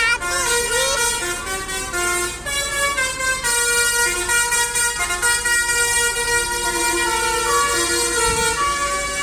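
Indonesian tour bus's 'telolet' multi-tone air horn playing a tune: held notes that step up and down in pitch, with a few sliding, siren-like notes near the start.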